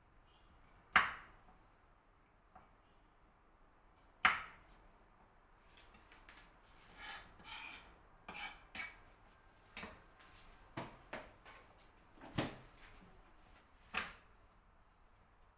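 A knife knocking sharply on a cutting board a few times, the loudest knocks about a second in and at about four seconds, with softer scraping and small clicks in between as garlic cloves are trimmed.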